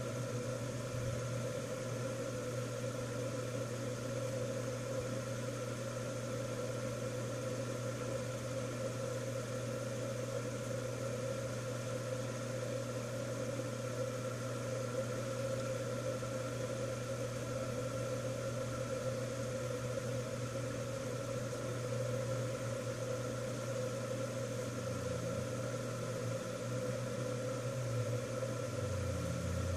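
Steady machine hum made of several held tones over a faint hiss, unchanging throughout.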